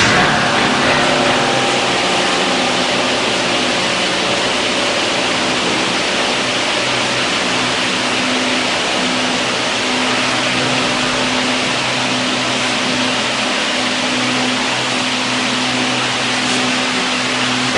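Steady machinery noise: an even hiss with a constant low hum underneath, unchanging throughout.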